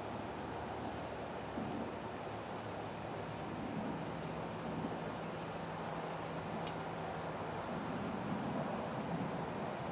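Outdoor insect chorus: a high, rapidly pulsing trill that comes in about half a second in and holds steady, over a faint background hiss and low hum.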